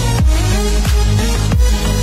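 Background electronic dance music with deep bass and a steady heavy beat.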